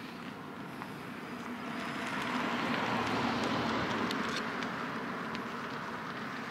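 A vehicle passing near the microphone: a rush of noise that swells to its loudest about three seconds in and then fades.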